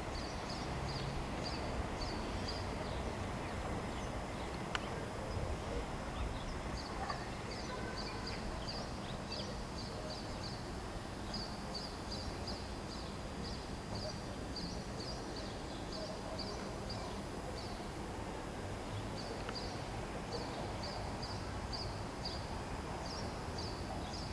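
Outdoor summer ambience: a steady low background rumble with repeated high-pitched chirps, about three a second, in long runs broken by short pauses.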